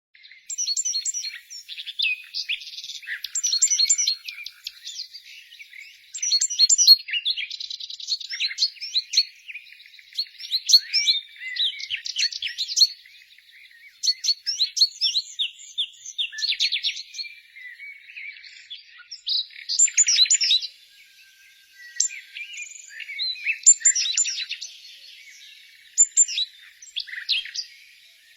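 Several songbirds singing and chirping at once, quick overlapping chirps and rapid trills that come in phrases with short lulls between.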